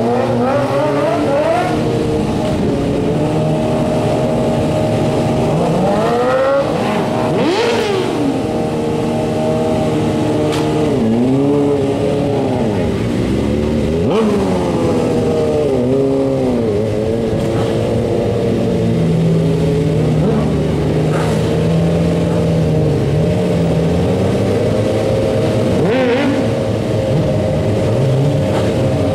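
Sport bike engine revved up and down repeatedly under throttle during wheelie stunts, with a stretch of fairly steady revs about two-thirds of the way through.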